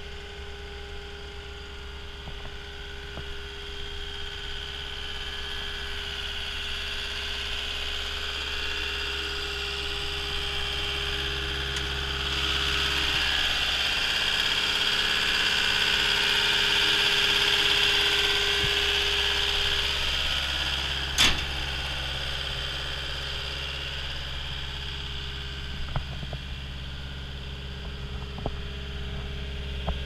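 Caterpillar 236D skid steer loader's diesel engine idling steadily, a constant hum with a rushing hiss that grows louder for several seconds in the middle, where the engine compartment is open. A single sharp click comes about two-thirds of the way through.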